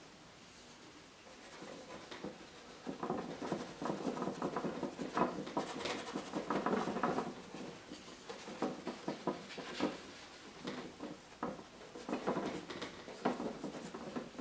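Paintbrush dabbing and scrubbing oil paint onto a canvas in many short strokes, a dense run in the first half, then scattered strokes toward the end.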